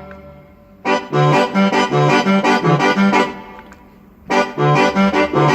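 An accordion-like banda sample sound on a keyboard, played as two short phrases. Low bass notes alternate with chords above them in an oom-pah rhythm.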